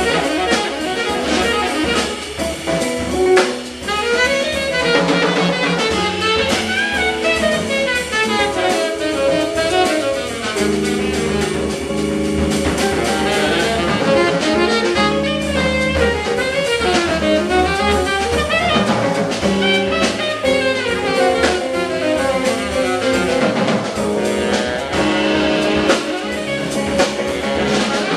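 Live jazz quartet of tenor saxophone, guitar, organ and drum kit playing, with quick, winding melodic runs over a steady bass line and busy drums.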